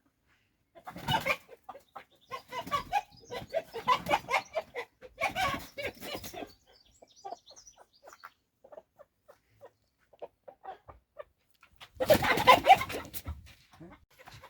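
Cock squawking and clucking in loud bursts, one run of them from about a second in to about six seconds, then a shorter burst near the end, as it is caught and held for slaughter.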